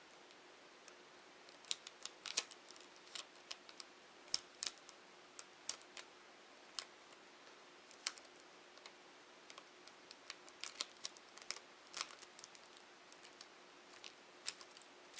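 Irregular light clicks and ticks of fingernails picking at and peeling the tape that holds the LCD cable connector on a laptop screen.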